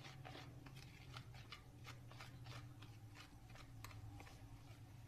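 Wire whisk stirring flour into wet cake batter in a bowl: faint, rhythmic scraping strokes, about three a second.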